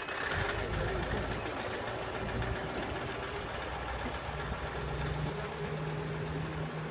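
KiHa 2004 diesel railcar running along the track and moving away, its diesel engine making a steady low hum. The engine note steps up slightly about four seconds in.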